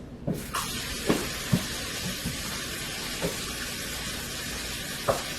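Hot water being poured off a pot of cooked penne pasta to drain it, a steady rushing hiss that sets in about half a second in, with a few light knocks of the pot.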